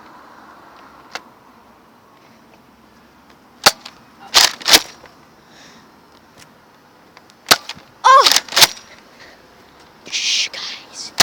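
Spring-powered Nerf blasters firing foam darts: sharp snaps spaced out in irregular bursts, a pair at about four seconds and several in quick succession around eight seconds, with a brief falling squeal among them.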